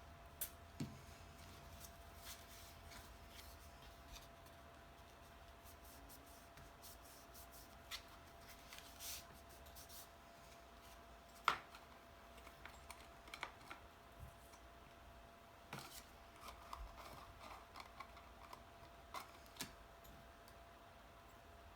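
Quiet handling of cardstock pieces at a craft table: scattered light taps, clicks and rustles, the sharpest a little past halfway, over a faint steady hum.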